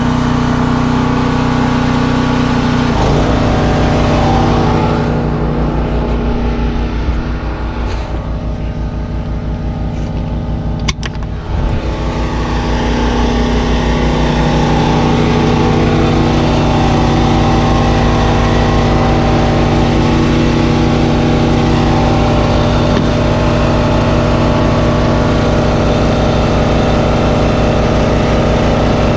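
An engine running steadily with a fast low pulse. It eases off from about five seconds in, a short sharp click comes near the middle, and it builds back up to a steady run.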